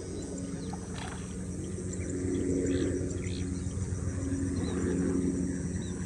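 A steady machine hum with a buzzing pitched drone and faint regular ticking, getting louder about two seconds in.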